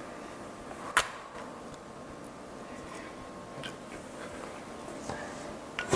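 Metal camping pots, lids and plates being handled slowly and carefully: one sharp clink about a second in, a few faint taps, then a louder clatter of metal right at the end.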